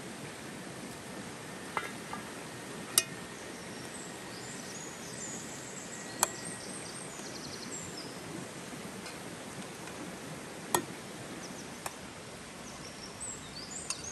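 Steady rush of a nearby river with birds chirping, broken by a few sharp metal clinks as a steel pot lid and plate are handled over a camp stove.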